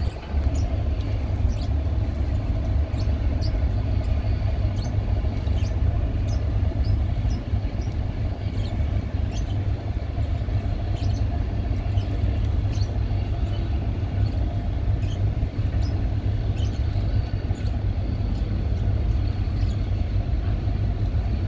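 Boat engine running with a steady low rumble, overlaid with scattered short, high ticks or chirps.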